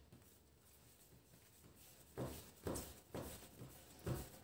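Yeast bread dough being pressed and rounded by hand on an oiled tabletop: quiet at first, then about five faint, soft slaps in the second half.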